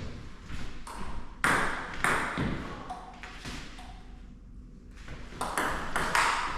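Table tennis rally: the celluloid ball pinging off bats and table in quick sharp hits about every half second, with a short lull about four seconds in before the hits resume.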